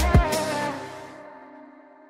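Electronic background music ending: a last couple of deep drum hits at the very start, then sustained notes ringing out and fading away.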